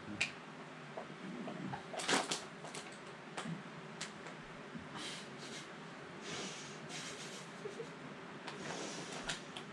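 Faint scattered rustles and small clicks of people shifting about on a bed, over quiet room tone.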